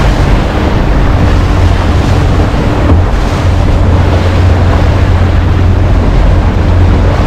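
A tour boat under way: its engine hums steadily under the rush of water along the hull, and wind buffets the microphone.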